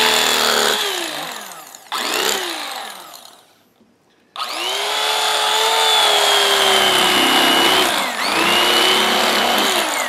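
Electric carving knife slicing through roast beef, its motor whining in runs. The whine winds down within the first two seconds and gives a short burst at about two seconds. After a pause of under a second it starts up again and runs steadily through the rest, dipping briefly near the end.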